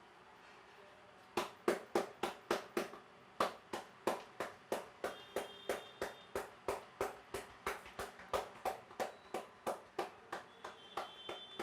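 Percussive head massage by hand: a rapid, even run of sharp slaps, about three or four a second, starting about a second and a half in, with a brief pause near three seconds.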